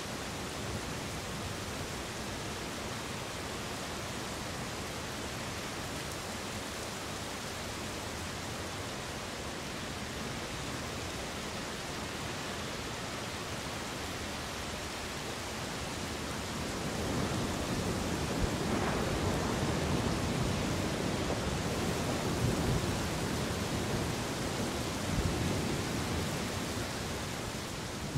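Steady rain hiss of a thunderstorm, with a long roll of thunder building about two-thirds of the way through and rumbling for several seconds before easing off.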